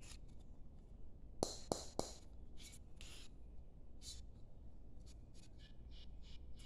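Faint handling of a metal tea tin and its lid: a few light clicks, three sharp knocks, then scraping and rubbing, with a run of short scratchy strokes about three a second near the end.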